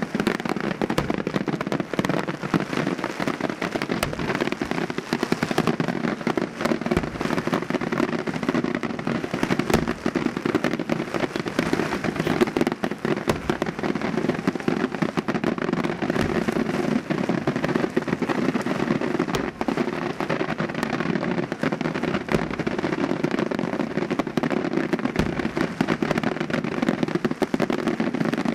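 Daytime aerial fireworks shells bursting in a dense, continuous crackle of small reports, with louder bangs standing out every few seconds.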